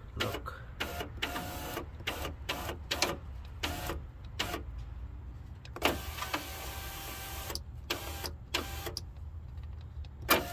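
Power window motor of a 2001 Volkswagen Passat passenger door driving the new window regulator in short stop-start bursts, with one longer run about six seconds in. The motor is being tested with the switch and works. A steady low hum runs underneath.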